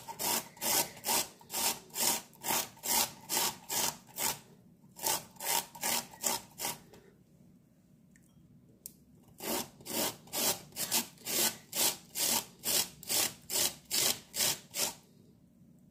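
Cauliflower being grated on a flat metal hand grater on a wooden board: rhythmic rasping strokes, about two to three a second, with a pause of about two seconds midway.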